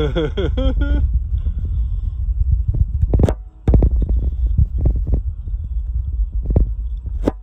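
Wind buffeting a phone's microphone outdoors, a loud, uneven low rumble that drops out briefly about halfway through. A short voice-like sound comes in the first second, and a few sharp knocks and taps fall in the second half.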